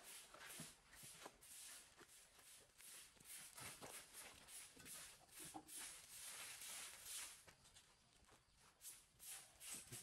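Straw broom sweeping leaves and twigs across a tiled floor: repeated quiet swishing strokes, about two or three a second, easing briefly near the end.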